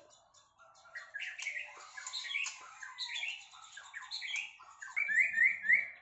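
White-rumped shama (murai batu) singing: a varied run of short whistled and chirping notes, ending with three quick rising whistles near the end.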